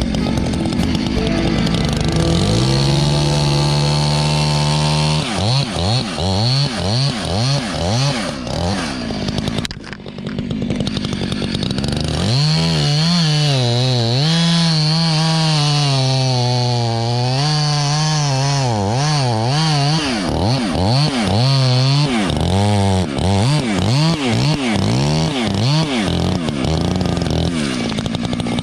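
Chainsaw running at high revs, its pitch rising and falling over and over as the throttle is worked and the chain loads in the wood, with a short drop about ten seconds in.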